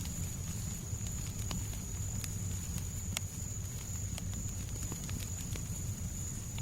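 Fireplace fire crackling: scattered sharp pops and ticks over a steady low rumble, with a faint steady high whine.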